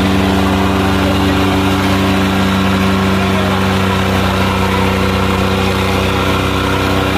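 John Deere 5310 and Sonalika 750 tractor diesel engines running hard under heavy load as they pull against each other, chained together. The engine note stays steady and loud, with no change in revs.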